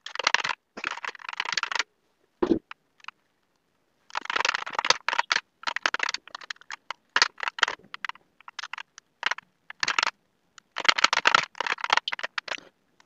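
Typing on a computer keyboard: quick runs of key clicks with short irregular pauses, and a longer break of about two seconds in the first third.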